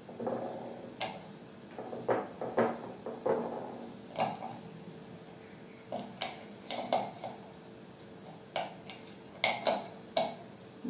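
Lumps of desi jaggery dropped one at a time into a small terracotta pot, giving a series of irregular knocks and clinks, about a dozen in all, over a faint steady hum.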